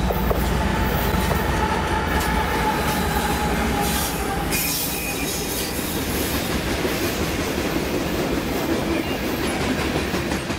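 A train passing close by on the railroad tracks, with a loud, steady rumble of wheels on rail and a thin squeal of wheels over it. The sound starts and stops suddenly.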